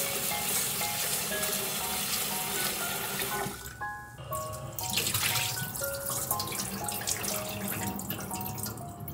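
Tap water running into a rice cooker's inner pot and splashing as rice is swirled and rinsed by hand; the flow stops a few seconds in, and the cloudy rinse water is poured off into a steel sink near the end. Soft background piano music plays throughout.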